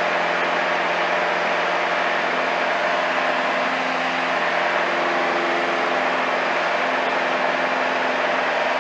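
Light aircraft's engine and propeller running steadily in flight, heard inside the cockpit as a constant drone with rushing air noise.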